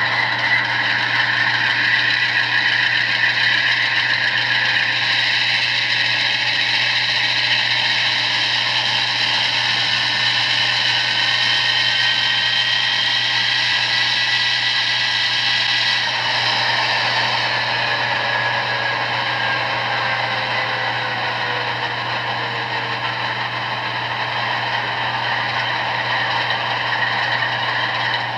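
LokSound decoder in an HO scale Amtrak P42 model playing GE Genesis diesel locomotive engine sound through the model's small speaker: a steady low drone with high whining tones. About halfway through, the whining tones begin sliding slowly down in pitch.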